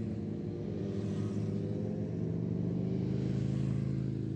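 Motorcycle engine running at fairly steady revs, just after the revs have dropped.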